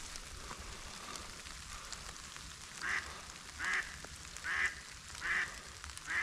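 A hen duck, the live decoy, quacking in a steady series of about five short quacks, roughly one a second, starting about three seconds in.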